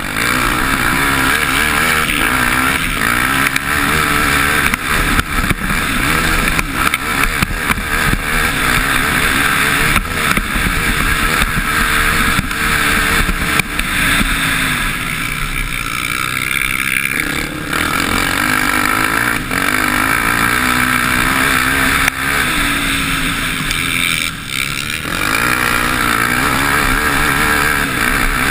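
Motocross bike engine heard close up from an onboard camera, revving up and down with the throttle as the bike races over a dirt track; it briefly eases off about 17 seconds in and again around 24 seconds in.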